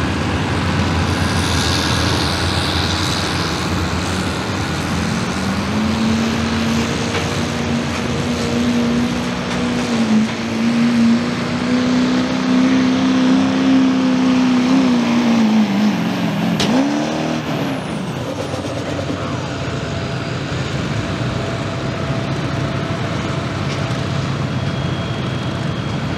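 Duramax turbodiesel V8 of a 2009 Chevy 2500 pickup pulling a 40,000-pound weighted sled at full throttle under heavy load. The engine note climbs a few seconds in and holds high and steady. About two-thirds of the way through it drops off sharply as the throttle is released at the end of the pull, then it idles steadily.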